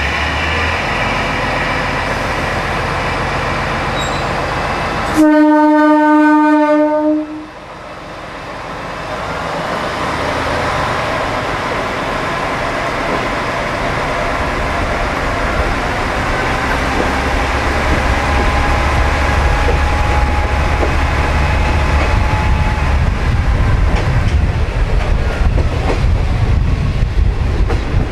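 Diesel railcar departing a station: its engine runs steadily, then about five seconds in the horn gives one long blast of about two seconds. The train then pulls away, the running noise rising and wheels clacking over the rail joints as it gathers speed.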